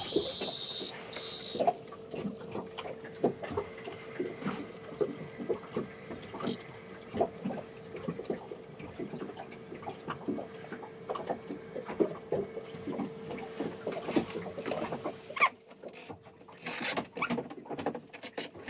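Small waves lapping and slapping against a small boat's hull, a run of irregular light knocks, over a faint steady hum that fades out near the end. A few louder knocks come near the end.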